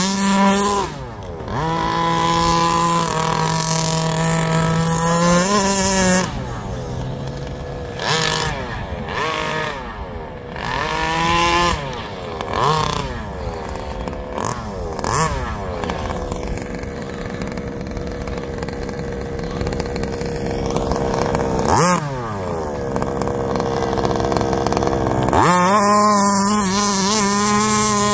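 Small two-stroke engines of RC baja buggies racing, revving up and falling back again and again with steady held stretches between. One buzzes past close by about three-quarters of the way in.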